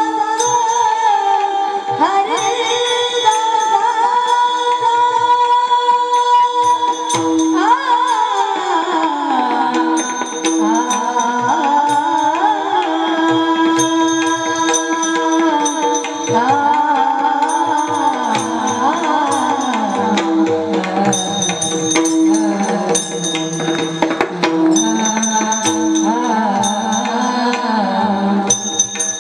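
Marathi kirtan music: a voice singing long, gliding, ornamented lines over a held drone, with jingling tambourine-like percussion and hand drum keeping the beat.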